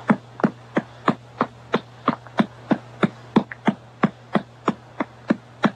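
A hand patting a baby's back in an even rhythm, about three pats a second.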